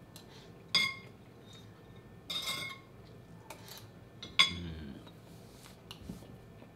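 Metal spoon clinking and scraping against a ceramic plate while eating fried rice: three clinks with a short ring, the loudest about four and a half seconds in.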